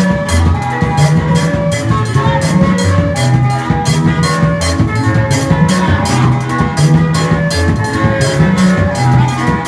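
Music with a steady drum beat, a moving bass line and sustained melodic notes.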